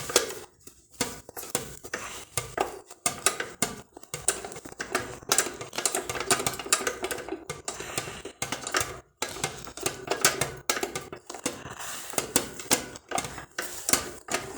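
Irregular metal clinks and clicks as nuts and weights are unscrewed and handled on the threaded balancer rod of a solid-fuel boiler's air damper.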